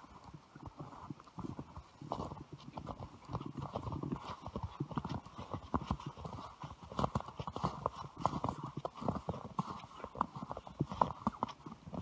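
Boots walking through snow: a steady series of crunching footsteps.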